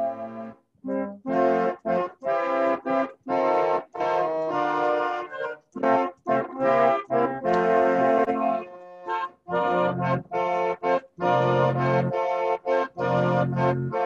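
An organ playing sustained chords. The sound cuts out abruptly in frequent brief gaps, as it would heard over a video call.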